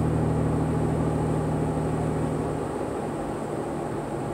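Car engine hum and tyre noise heard from inside the cabin while driving; the low engine hum fades about two-thirds of the way in, leaving steady road noise.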